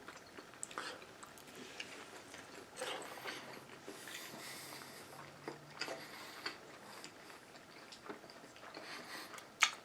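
Faint chewing and mouth sounds of someone eating, with a few small scattered clicks.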